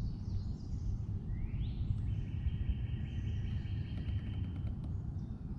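Outdoor swamp ambience with a steady low rumble, and birds calling: a rising call about a second and a half in, then a long, rapidly pulsed trill lasting about three seconds.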